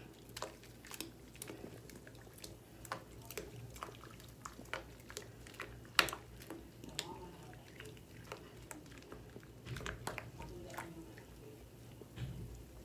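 Wet wigs being squeezed and worked by hand in soapy water in a sink: irregular soft squishes and small clicks, with one sharper click about six seconds in.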